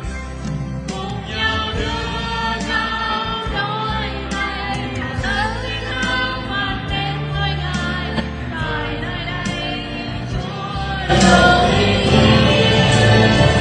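Church worship song: several voices singing with a band behind them. A softer passage swells into a louder, fuller section about eleven seconds in.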